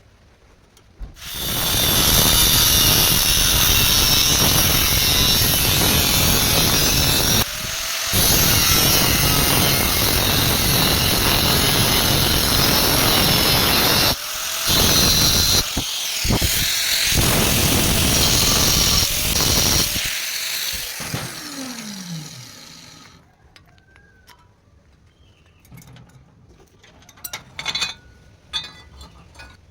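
An electric power tool running at full speed in long bursts, stopping briefly three times and starting again with a short rising whine. About 20 seconds in it shuts off and spins down in a falling whine, followed by light clicks and knocks.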